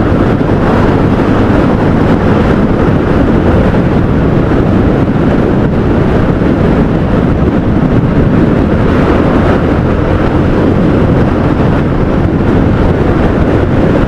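Steady wind noise buffeting the microphone of a motorcycle at road speed, with the engine's even hum underneath.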